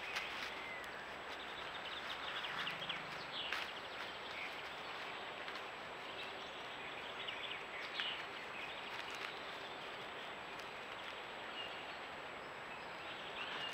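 Steady hiss from a trail camera's microphone, with a few faint, short bird chirps scattered through it and a couple of brief soft rustles.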